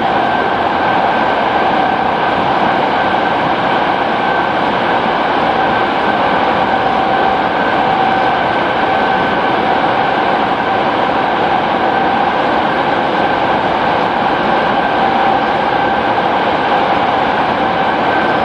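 Kobe City Subway 3000-series electric train running at a steady speed, heard from inside the car: a constant rush of wheel and running noise with a steady whine on top.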